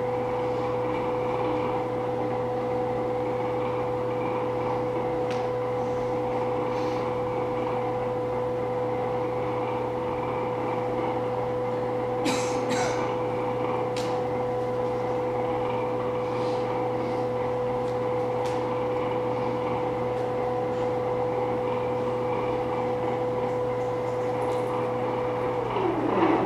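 Sustained electronic drone: a steady mid-pitched held tone over a low hum, with a few short clicks about halfway through. At the very end the tone slides down in pitch and cuts out.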